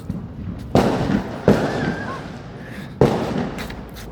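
Fireworks bursting in the distance: three sharp bangs, each echoing away, the first about three-quarters of a second in, the second half a second later and the third about three seconds in.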